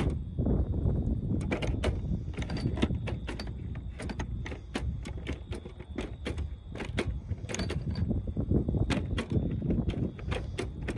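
Scattered light metal clicks and taps from a grease gun's hose tip working against steel U-joint bearing cups as they are packed with grease, over a steady low rumble.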